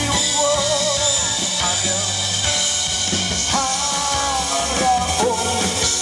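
A male singer singing into a handheld microphone over a backing track with drums, the melody held in long notes with vibrato.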